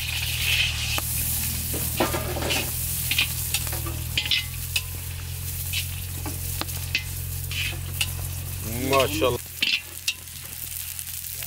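Sliced onions sizzling as they fry in hot oil in a large iron karahi, with a long-handled metal slotted spoon stirring them and clinking and scraping against the pan. A steady low hum sits underneath and stops about nine seconds in.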